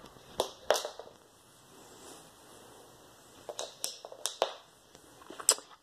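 A handful of short, light clicks and taps from a plastic toy doll being handled: two in the first second, a little cluster about halfway through, and one more near the end.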